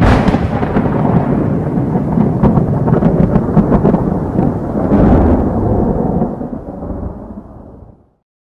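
Thunder rumbling, with a sharp crack at the start and another loud surge about five seconds in, then fading away.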